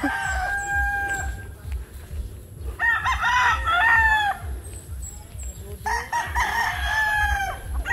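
Roosters crowing, one long crow after another: one ends about a second and a half in, another comes at about three seconds, and a third at about six seconds.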